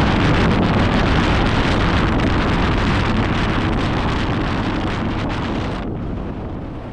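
Heavy wind buffeting the microphone, with a low rumble underneath, while on the move. It fades toward the end, the hiss dropping away about six seconds in.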